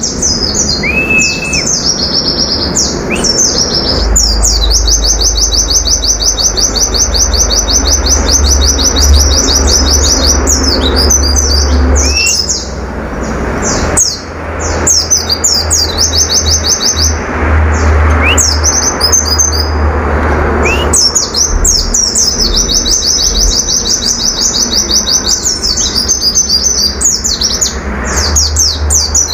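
White-eye (pleci) singing its rapid-fire 'tulit tulit' song: long runs of fast, high-pitched repeated notes, broken around the middle by scattered chirps and a few short rising whistles.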